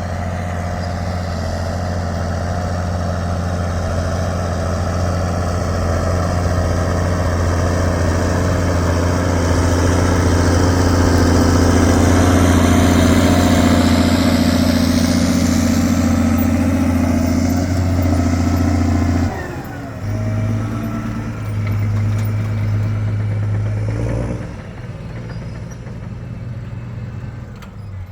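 Claas Axion 820 tractor's six-cylinder diesel running through a straight pipe, held at steady revs with a deep drone that grows louder. About two-thirds of the way through the revs drop away suddenly to a lower, uneven note, and they settle lower still near the end.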